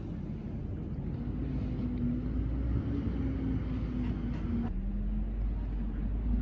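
Steady low rumble with a droning engine-like hum, typical of a motor vehicle. The hum drops a little in pitch about three-quarters of the way through.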